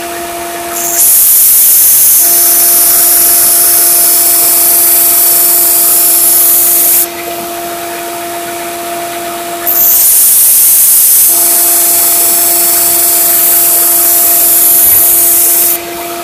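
Grizzly 1x30 belt sander with a fresh 120-grit belt grinding a machete's steel edge freehand: two long passes of about six seconds each, a loud harsh hiss of steel on the abrasive belt over a steady hum.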